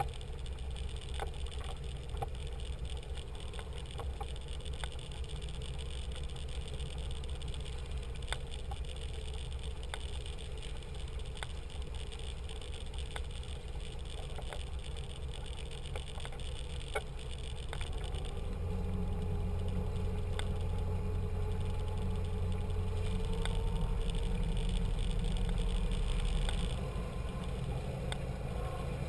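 Cabin cruiser's engine running at low speed, a steady low drone with scattered light ticks and rattles. About two-thirds of the way through it grows louder and its pitch slowly rises, then it drops back sharply shortly before the end.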